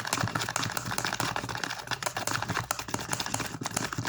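A slime and white glue mixture being stirred fast in a container: a dense run of quick, sticky clicks.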